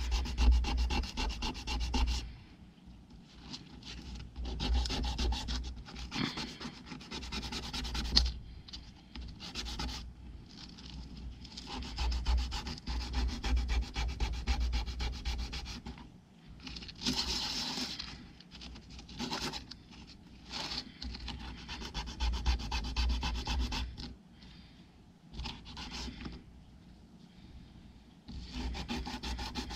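A small wooden craft-stick piece is hand-sanded on a sanding pad. The scratchy rubbing comes in bouts of a few seconds with short pauses between, and a low rumble runs under the strokes.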